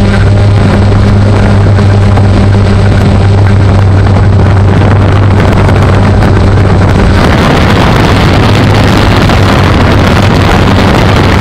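A hovering drone's motors and propellers humming steadily, heard through heavy wind buffeting on the onboard microphone. About seven seconds in, the hum fades under a louder rush of wind.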